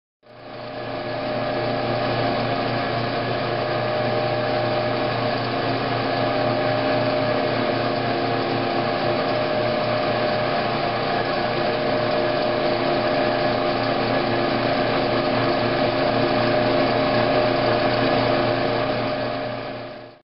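Steady machinery hum with an even hiss and several constant tones, fading in at the start and out near the end.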